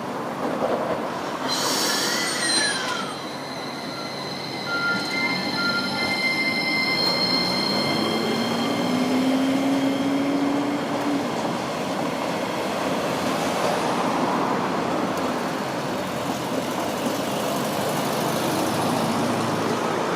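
A Sapporo streetcar moving at the stop, its steel wheels squealing on the rails in several high, steady tones for the first half. Partway through, the traction motor's whine rises in pitch as the tram picks up speed, over a steady rumble of wheels and traffic.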